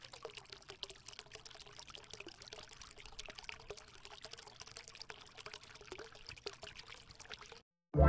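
Water trickling and splashing from the spouts of a small tabletop fountain made of plastic bottles, falling into the water-filled bottle cups below. It is faint and steady, with many small splashes, and cuts off suddenly near the end.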